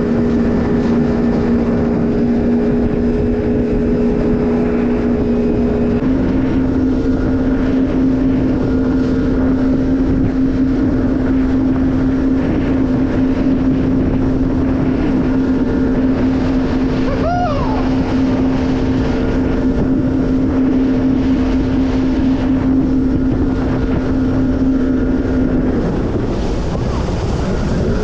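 Jet ski engine running at a steady cruising speed, with wind rushing over the microphone and water spray. The engine note steps up a little several seconds in and eases off near the end.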